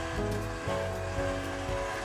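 Background music with held notes that change every half second or so.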